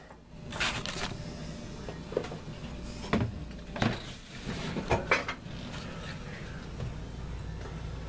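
A few short clunks and scrapes of handling at the truck's engine, about four in the first five seconds, over a low steady hum, as gas is being got ready to prime the carburetor.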